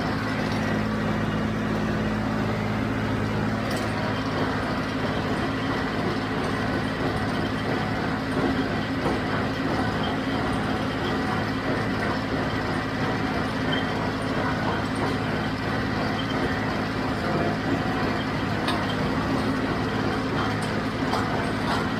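John Deere 5055D tractor's three-cylinder diesel running steadily under load, pulling a John Deere 348 square baler through the hay.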